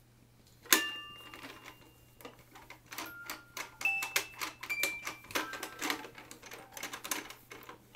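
Small toy tambourine being struck by hand. One loud hit comes about a second in, and from about three seconds in a quick, irregular run of taps follows, each with the short ringing jingle of small metal discs.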